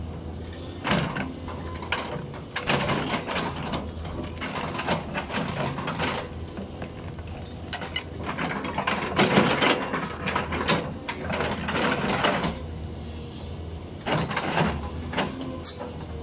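Caterpillar 320D L tracked excavator's diesel engine running steadily while the bucket digs out tree stumps and roots, with repeated bursts of clanking, creaking and scraping, loudest in the middle.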